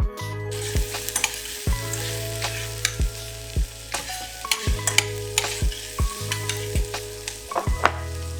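Background music with a steady low beat, over a constant crackling hiss.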